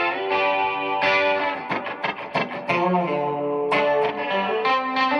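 Clean electric guitar through a Donner Verb Square Evolution+ pedal on its mod reverb setting: chords and single notes ringing out with reverb and a lot of chorusing, with a quick run of strummed strokes in the middle.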